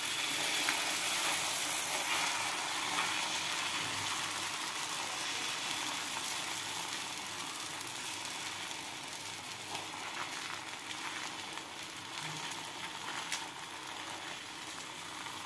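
Wheat-flour dosa batter sizzling in oil on a hot tawa, with faint scrapes of the spoon spreading it. The sizzle slowly dies down.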